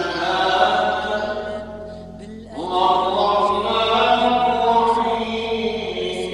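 Melodic Quran recitation (tajweed) by a single male voice, long drawn-out phrases with gliding, ornamented pitch. The voice falls away briefly about two seconds in, then a new phrase starts with a rising glide.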